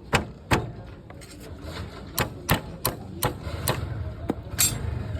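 A series of sharp clicks and knocks, irregularly spaced, over a low steady hum; the clicks bunch together in the middle.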